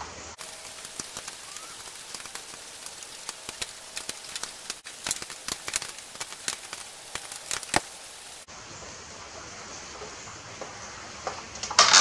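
Scattered sharp clicks and light metal clatter over a soft hiss, from a wrench and bolt being worked by hand on a lawn tractor engine's blower shroud. The clicks are densest in the middle and stop abruptly about two-thirds of the way through.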